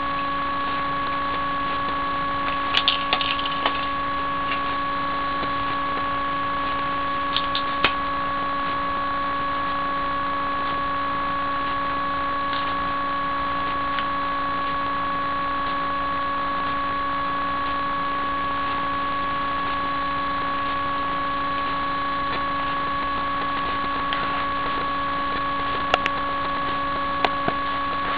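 A steady electrical whine made of several fixed tones, running at an even level throughout. A few faint clicks and taps come over it: a cluster about three seconds in, a couple near eight seconds, and a few more near the end.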